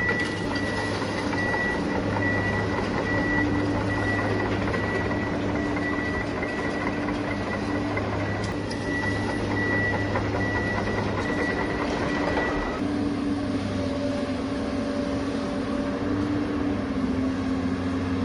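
RC construction truck's sound unit running: a steady diesel-style engine drone with an evenly repeating high reversing beep, which stops about two-thirds of the way through while the engine note shifts and carries on.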